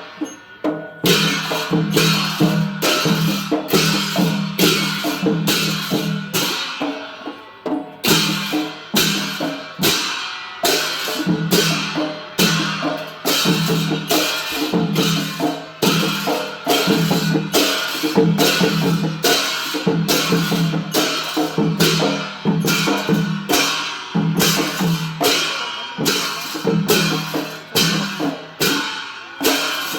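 Traditional Newar festival percussion for a Lakhe dance: drums and clashing cymbals playing a steady beat, about two strokes a second. The beat thins briefly about seven seconds in, then picks up again.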